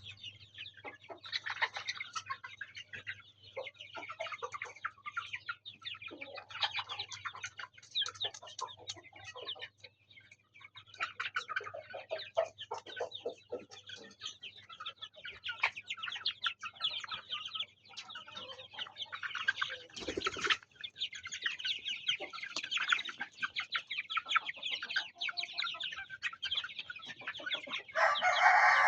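A flock of mixed-breed chickens clucking and calling over a low steady hum. There is a brief thump about twenty seconds in, and a louder call near the end.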